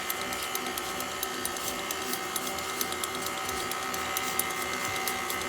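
Electric stand mixer running steadily, beating flour into cake batter, its motor giving a constant whirring hum.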